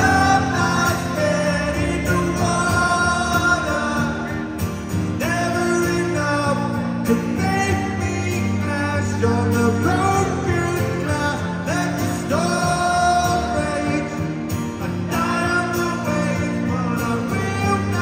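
Male voice singing live over acoustic guitar accompaniment, with long held sung notes.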